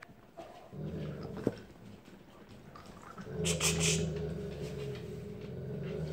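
A dog growling low and steadily in two long stretches, the second starting about three seconds in, with a brief noisy burst just after it begins: a warning growl over a chew toy held from another dog.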